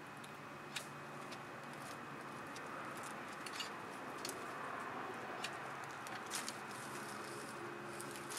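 A European hedgehog moving about on rough gravel: scattered light clicks and scrapes of its feet, with a sharper click right at the end.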